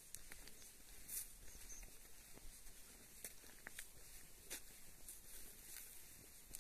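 Near silence: a faint hiss with scattered soft ticks and light rustles at irregular intervals.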